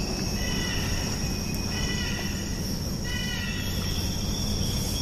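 Steady night insect chorus, crickets chirring in one unbroken high tone over a low rumble. Three short high-pitched calls stand out, about a second and a half apart.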